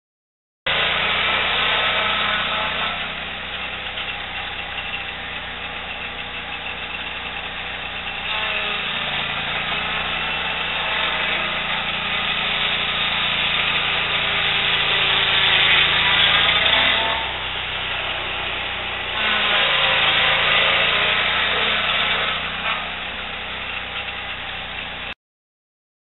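Portable sawmill's engine running under load as the mill head is pushed through a cottonwood cant. Its level rises and falls with the cut, loudest about two-thirds of the way through, and it cuts off suddenly near the end.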